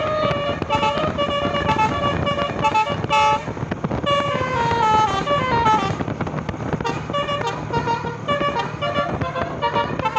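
Bus telolet musical air horn playing a Basuri melody: a quick run of short, stepped horn notes, with a long falling run of notes about four seconds in.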